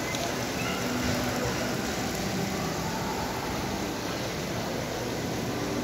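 Steady background noise of a large indoor shopping mall, with faint distant voices now and then.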